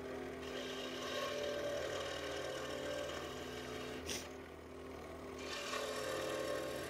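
Electric scroll saw running, its reciprocating blade cutting through a small piece of wood with a steady motor hum. The sound eases a little about four seconds in, with a brief click, then picks up again.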